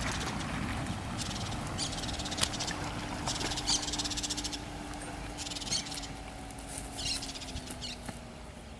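Outdoor ambience with a short, buzzy, high-pitched animal call repeating about five times, a second or so apart, over a faint steady low hum.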